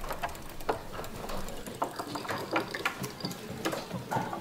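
Irregular small clicks and taps of hand work at a fly-tying bench: fingers, thread and small tools being handled while trout flies are tied.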